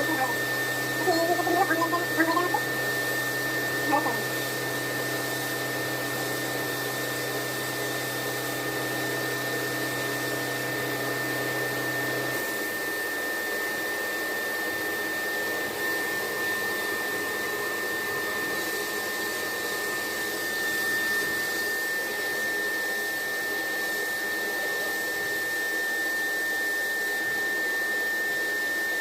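A CNC bangle-cutting machine running: a steady high-pitched whine over a hiss, with a lower hum that stops about twelve seconds in.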